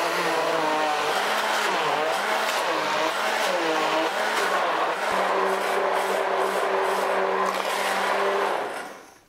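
A 450 W immersion blender runs, whirring as it purées cottage cheese, eggs and sugar into a smooth batter. Its pitch wavers up and down for the first few seconds as the load shifts, then holds steady as the mix turns smooth, and it winds down near the end.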